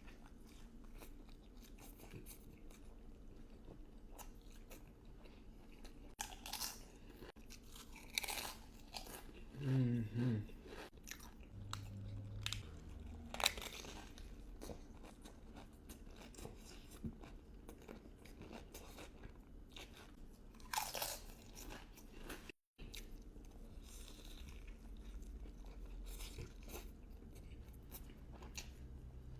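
A person biting and chewing crunchy food close to the microphone: a toasted grilled cheese burrito with tortilla chips, with crisp crunches at irregular intervals. A short hummed "mm-hmm" comes about ten seconds in, and the sound cuts out for a moment a little past two-thirds of the way through.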